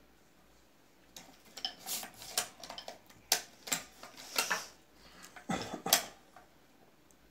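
Hand-lever cigarette tube filling machine being worked: an irregular run of metal clicks, clacks and scrapes from its lever and slide, starting about a second in, with two sharp clacks standing out a little past three seconds and near six seconds.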